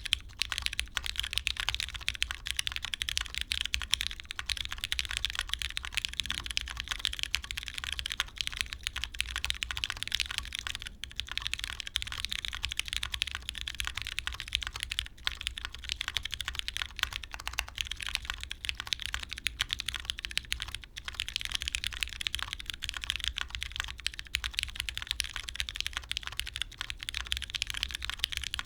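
Continuous fast typing on a Mode Tempo mechanical keyboard with lubed, filmed Cherry MX Brown tactile switches in an FR4 plate, lattice-block mount, and doubleshot keycaps: a dense stream of key clicks with short pauses here and there.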